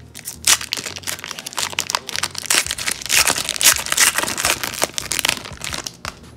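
A foil-wrapped Upper Deck Parkhurst hockey card pack being torn open and peeled apart by hand: a dense, uneven run of crinkling and tearing that starts about half a second in and dies away shortly before the end.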